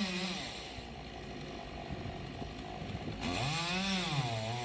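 Chainsaw engine being throttled while cutting a tree, its pitch rising and falling; it drops to a quieter stretch after the first moment and revs up again about three and a half seconds in.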